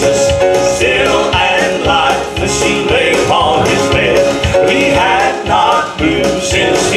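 Male gospel vocal trio singing in harmony over instrumental accompaniment with a steady beat.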